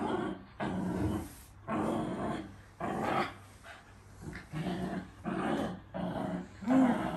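Dog growling in play, a string of short growls about one a second, while it goes for a toy.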